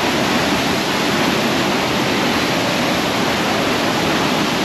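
Waterfall heard up close: a loud, steady rush of falling water that drowns out everything else.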